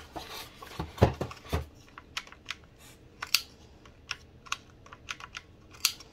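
Irregular plastic clicks and taps from handling an airsoft M4 rifle's plastic body, fingers working its levers and switches, with a couple of louder knocks about a second in.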